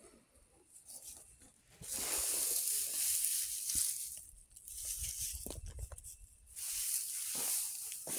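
Dry threshed bean chaff and pods rustling and crackling as a hand stirs and scoops through the pile of beans. The rustling comes in two spells, about two seconds in and again near the end.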